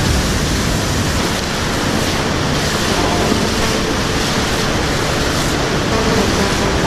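Fast-flowing river water rushing over rocks and cascades, a steady rush of noise.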